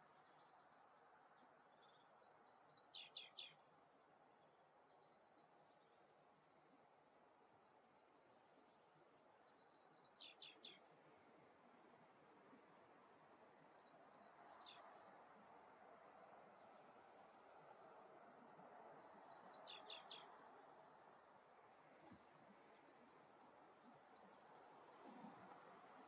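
Faint bird calls: four short bursts of quick chirps, a few seconds apart, over steady high chirping and insect buzz.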